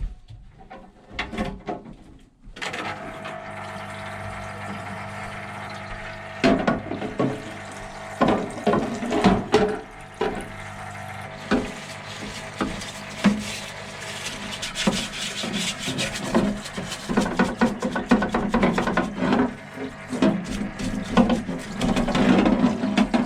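Scrubbing and rubbing on a moped's removed crankcase cover as it is cleaned, with repeated short scrapes and light knocks over a steady hiss that starts a couple of seconds in.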